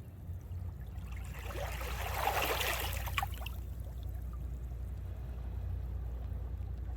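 Water rushing or splashing, swelling for about two seconds and then fading, over a steady low hum.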